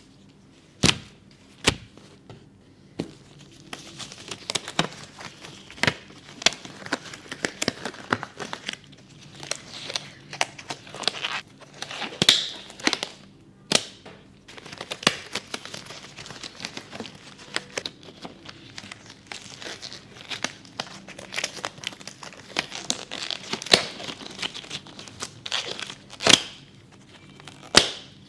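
Packaging being handled and opened: crinkling and tearing, broken by many sharp clicks and taps at irregular intervals.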